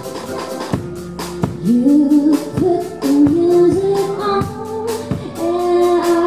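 A woman singing live with a rock band: drums, bass guitar and electric guitar. Her voice enters strongly about a second and a half in, over a steady drum beat.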